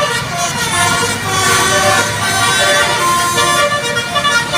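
Bus 'telolet' horns sounding melodic multi-tone blasts, several held notes overlapping and shifting in pitch.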